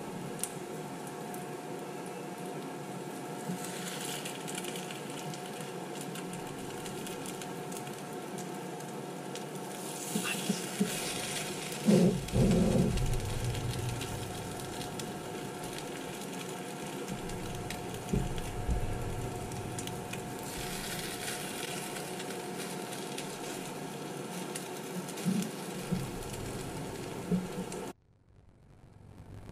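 French toast frying in a cast-iron frying pan, a steady sizzle. Metal tongs knock and scrape against the pan as the slices are turned over, loudest about 10 to 13 seconds in, with a few lighter clicks later.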